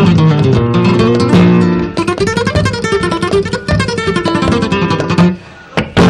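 Flamenco guitar playing alone between sung verses: strummed chords and quick runs of notes. It drops away briefly near the end, then strikes a sharp chord.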